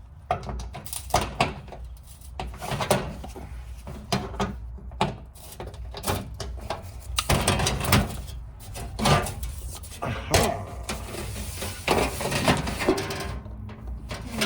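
Irregular knocks, clicks and clatter of hand tools and fasteners as the car's underbody protective cover is unscrewed and worked loose.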